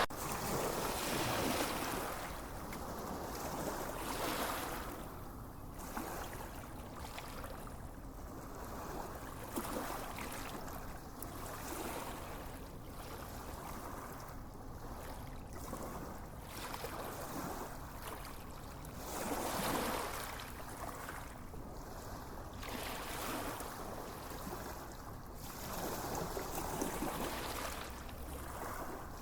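Gentle waves washing onto a sandy beach, the surf swelling and easing every few seconds, with one fuller wave about twenty seconds in.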